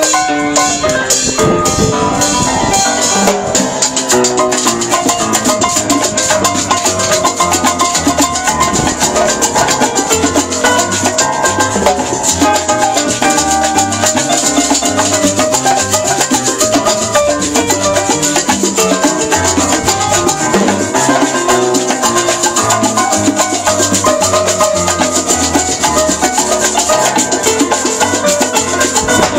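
Live salsa-style Latin band playing: congas and rattling hand percussion driving a dense, steady rhythm over a stepping bass line.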